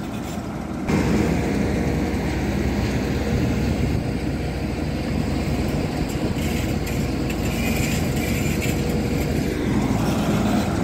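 Horizontal directional drilling rig's engine running steadily under load as the machine pulls the drill pipe back through the bore. It gets louder about a second in and then holds steady.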